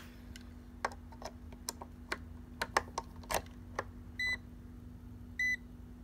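Fieldpiece SC640 clamp meter giving short high beeps, twice in the second half about a second apart. Before them comes a run of small clicks and taps from the meter and its test leads being handled, over a faint steady hum.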